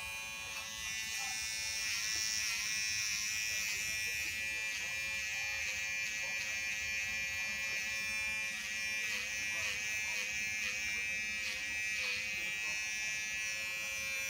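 Small electric pet hair clipper buzzing steadily as it runs.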